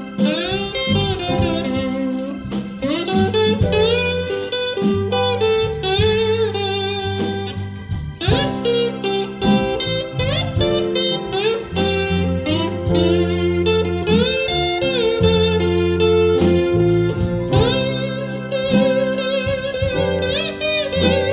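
Amplified electric guitar played with a slide: a solo of gliding, bending notes over steady bass notes and a drum kit keeping an even beat.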